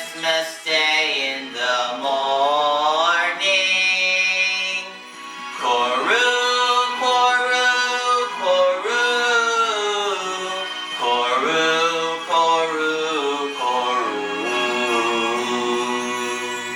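A Christmas carol sung with instrumental accompaniment: held, wavering sung notes over a steady backing.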